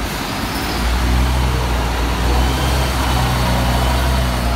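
Mercedes-Benz O405G articulated bus's diesel engine pulling away, a deep steady drone that swells in about a second in and holds.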